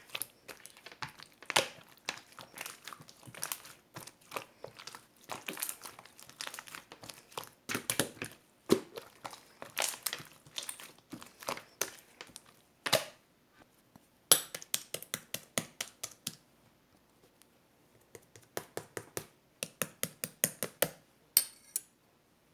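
Irregular crinkling and crackling, like something being handled and crumpled, in quick clusters of sharp clicks. There is a short pause about two-thirds of the way through, then more crinkling that stops near the end.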